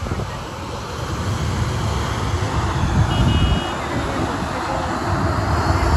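Engine noise with a dense low rumble that builds in loudness, a high whine rising near the end, and a short beep about halfway through.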